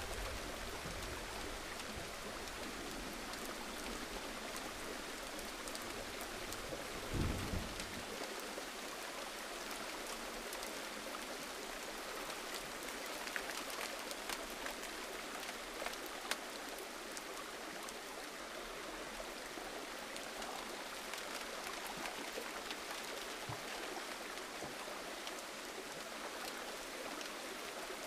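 Steady gentle rain: an even hiss of falling drops, with a few louder single drops striking now and then. A low rumble underneath dies away about eight seconds in.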